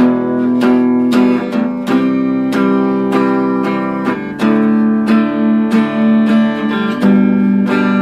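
Acoustic guitar strummed in a steady rhythm, about two strums a second, changing chords every couple of seconds in an instrumental break of a folk song.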